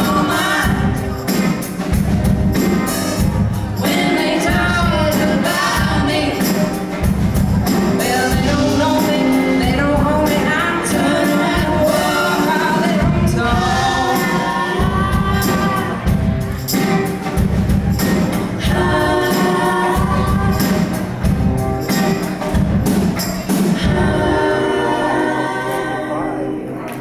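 A group of women singing in harmony with a band over a steady beat; about 24 seconds in the beat stops and the voices hold a final chord.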